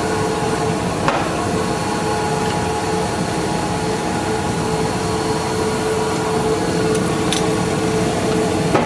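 Metal lathe running with its spindle turning: a steady machine hum holding one constant tone, with a light click about a second in and others near the end.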